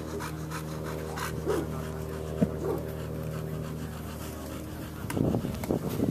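Rottweiler panting quickly and steadily over a low steady hum. About five seconds in, a louder burst of noise comes in.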